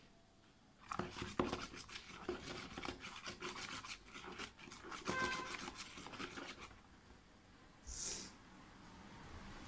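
Slime mixture of glue, shaving foam and body cream being stirred in a plastic tub with a small utensil: quick scraping, rubbing strokes against the plastic, starting about a second in and stopping about seven seconds in. A short hiss comes near the end.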